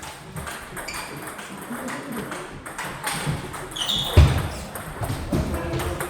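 Table tennis ball clicking off paddles and the table, with a couple of short high pings and a heavy thump about four seconds in.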